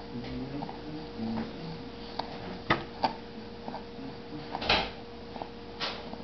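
A baby's hands tapping and scraping on a plastic high-chair tray while picking up small pieces of cereal: a few sharp clicks and short knocks, the loudest a brief scrape a little before the end, over a steady faint hum.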